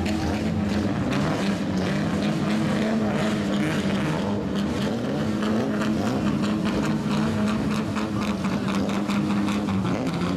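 Straight-piped exhausts of lowered kaido-racer cars running as they creep in at low speed, a loud, steady low exhaust note.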